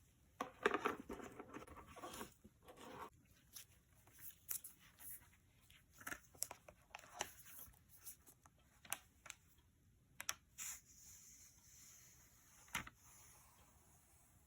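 Faint handling sounds of iPad packaging: a couple of seconds of rustling and tearing of paper or plastic wrap, then scattered light taps and clicks, with one sharper click near the end.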